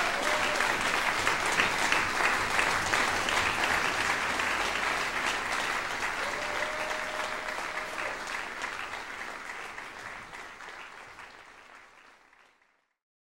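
Audience applause, a dense wash of clapping that fades out over the last few seconds to silence.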